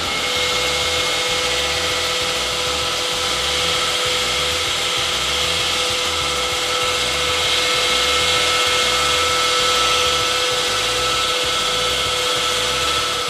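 Track-mounted wall saw running steadily, its motor whining at a constant pitch while the diamond blade cuts through a concrete wall.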